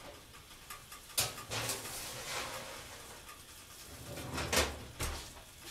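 Kitchen handling noises: sharp knocks and clatters with dull thuds, one about a second in and the loudest about four and a half seconds in.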